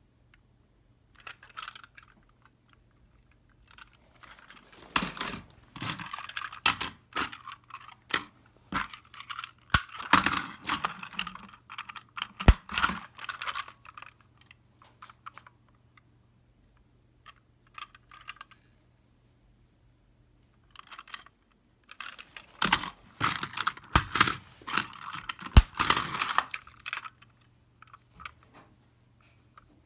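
Plastic toy-train packaging being opened and handled: bursts of crinkling and sharp plastic clicks, in two spells with a quiet gap between, over a faint steady hum.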